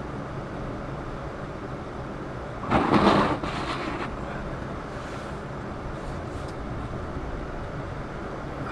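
Steady car road and engine noise heard inside the cabin while driving, with one louder rush lasting under a second about three seconds in.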